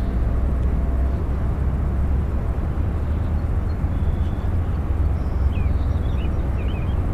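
Steady low rumble of wind buffeting the microphone, with a few faint bird chirps about five to six seconds in.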